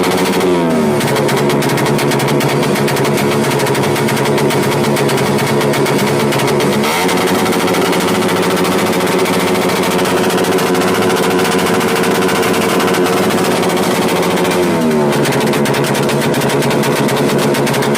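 TVS Raider 125 FI motorcycle's single-cylinder engine running through its KOU exhaust pipe with a rapid, popping beat. It settles to idle in the first second, is held at raised revs from about 7 s, and drops back to idle at about 15 s.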